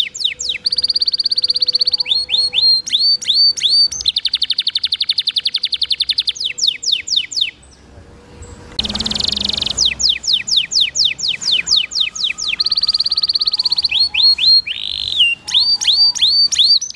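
Domestic canary singing a long, fast song: rapid trills of repeated notes alternating with quick sweeping whistles, with a brief pause about eight seconds in.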